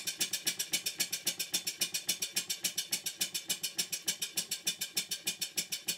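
Model 5A steam engine running on compressed air, its exhaust beating in rapid, even chuffs about eight a second.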